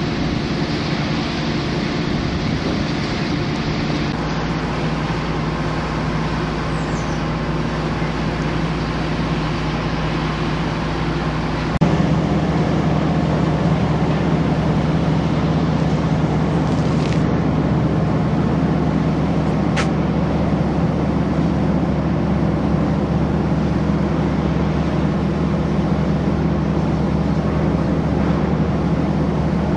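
Industrial wood chipper plant running with a steady machine hum. About twelve seconds in, the sound cuts abruptly to a louder, deeper steady hum.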